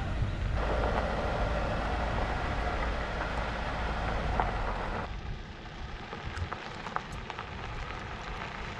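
Motorhome driving on a gravel dirt track: a steady rumble of engine and tyres with gravel crackle. About five seconds in it drops suddenly to a quieter crunching and ticking of gravel.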